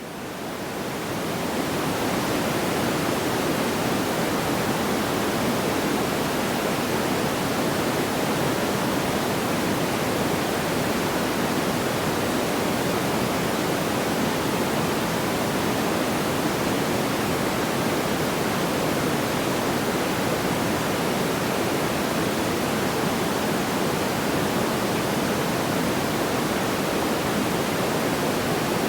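Steady, even rushing noise like pink noise, with no audible crackles or pops. It fades in over the first couple of seconds and then holds level.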